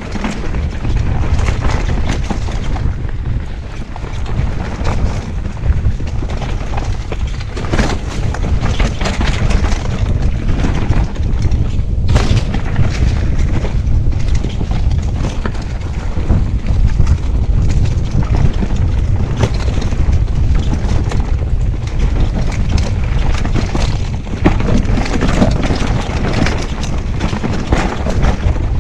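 Mountain bike running fast down a rough dirt trail, heard on a chest-mounted action camera: a constant heavy wind rumble on the microphone, with many knocks and rattles as the bike jolts over the ground.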